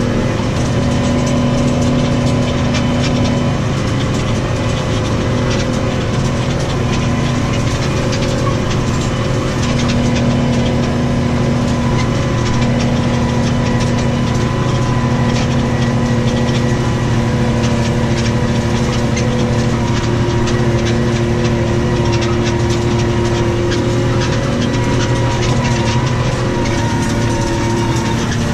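New Holland T6.155 tractor engine running steadily under load while pulling a plough, with an even drone.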